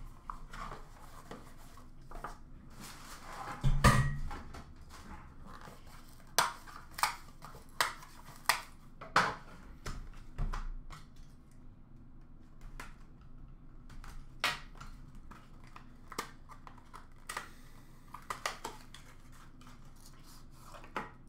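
Handling a hockey card box and its packaging: a louder knock about four seconds in, then a string of sharp taps and clicks over the next several seconds and scattered lighter ones later, with faint rustling.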